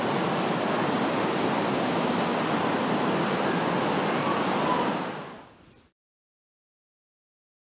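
Steady rushing of water from a waterfall and torrent in a rock gorge. It fades out about five seconds in and gives way to silence.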